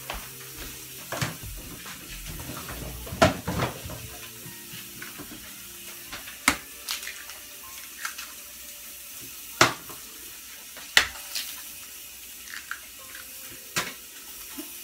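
Eggs being cracked on the rim of a bowl: a handful of sharp, separate cracks a few seconds apart over a steady hiss.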